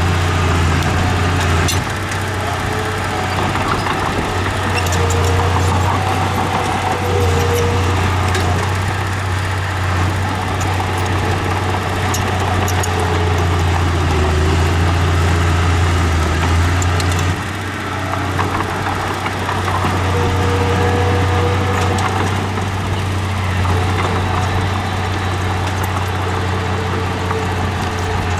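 Heavy earthmoving machine's diesel engine running with a deep, steady drone; the level dips briefly about two seconds in and again around seventeen seconds.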